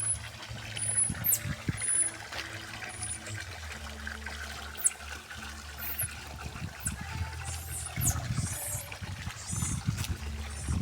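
Water trickling and splashing, with short high chirps scattered throughout.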